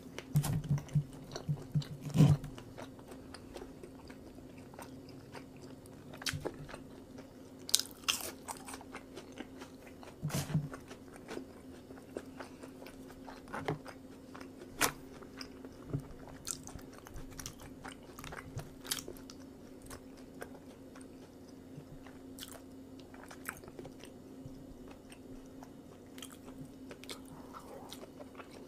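A person biting and chewing Korean street food close to the microphone, with occasional crunches and short clicks, busiest in the first couple of seconds. A faint steady hum runs underneath.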